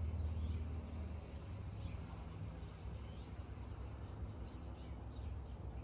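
Low steady background hum with faint, scattered bird chirps.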